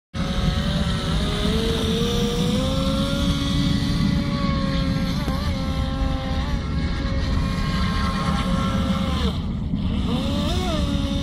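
Radio-controlled speedboat's motor whining at high speed over a constant low rumble. The pitch climbs and holds, drops away briefly about nine seconds in as the throttle comes off, then rises again as it powers back up.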